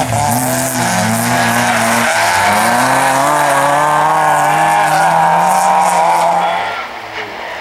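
Rally car's engine held at high revs, its pitch wavering up and down as the car slides through a muddy corner, then falling away sharply about seven seconds in as it drives off.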